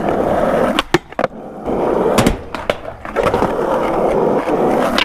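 Skateboard wheels rolling on concrete, a continuous grinding noise, broken by several sharp clacks of the board: two about a second in, two more a little after two seconds, and one at the end.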